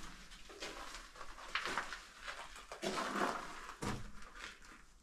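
Footsteps crunching on loose rock and gravel, a few irregular steps, inside a narrow hard-rock mine tunnel.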